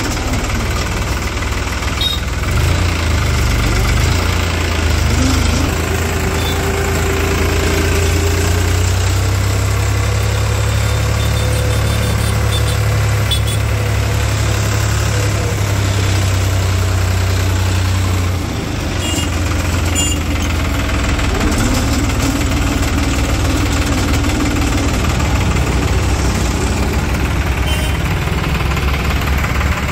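New Holland 3630 tractor's three-cylinder diesel engine running as the tractor drives along a road, a loud, steady low drone that dips briefly about two-thirds of the way through.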